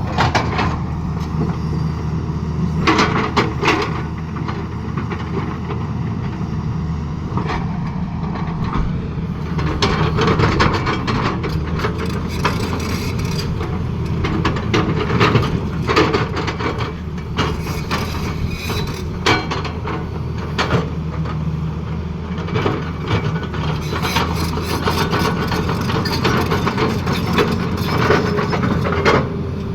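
Excavator's diesel engine running steadily under load, with frequent irregular knocks, clanks and scrapes of the machine at work.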